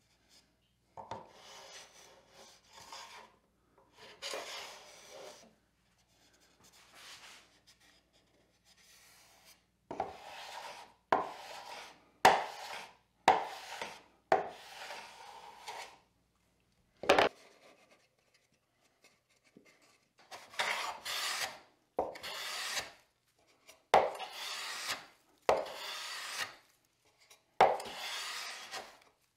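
Hand plane taking repeated shaving strokes along the edge of a wooden board. Each pass is a short rasping cut. The passes are lighter at first and firmer later, coming about every second and a half toward the end, with one sharp knock about halfway.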